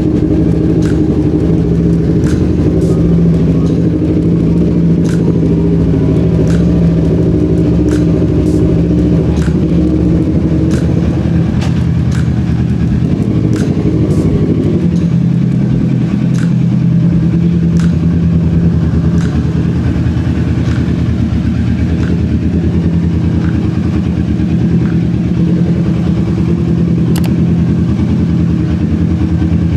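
Kawasaki Z650's parallel-twin engine running at a steady speed, with no revving.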